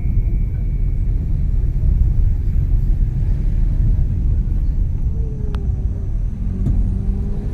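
Steady low rumble of a car's engine and tyres on the road, heard from inside the cabin while driving slowly. A couple of light clicks and a faint steady hum come in near the end.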